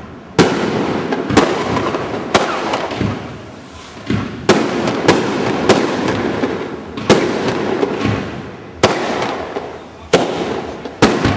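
Fireworks display: a string of about ten sharp bangs from bursting shells, roughly one a second and some closer together, each trailing off in an echo, over a steady noisy rumble and crackle.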